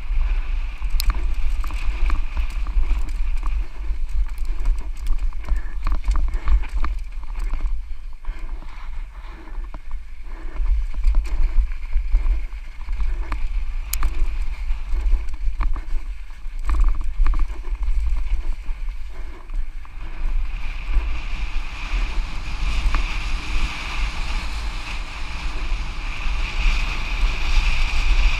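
Wind buffeting the microphone as a Santa Cruz Nomad mountain bike descends a dirt trail at race speed, tyres rolling over the dirt, with scattered clicks and knocks from the bike over rough ground.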